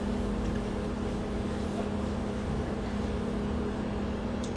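Steady mechanical hum with a constant low tone from a room air-conditioning unit running.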